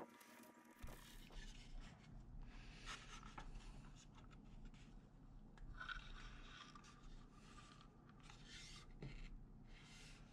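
Faint, short scrapes of a wood chisel paring a small slot in a wooden scabbard, then rubbing as a small G10 knob is pressed into the slot to test the fit.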